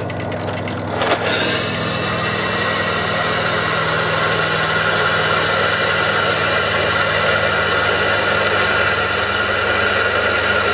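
Bench drill press running, its 6 mm drill bit cutting into metal through a reamed hole to spot and drill the hole position. It is a steady motor hum with a whining cutting noise that starts about a second in.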